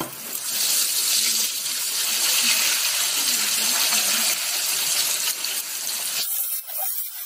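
Small pieces of red bell pepper frying in hot oil in a pan, a steady loud sizzle as they are stirred with a slotted spoon. About six seconds in, the sizzle drops away and thins out.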